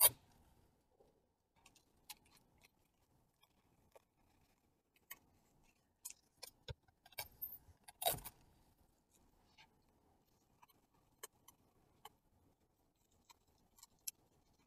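Clear tape being pulled off the roll and pressed around plastic wrap over the end of a cardboard toilet-paper tube: scattered small crackles and clicks, with one louder crackle about eight seconds in.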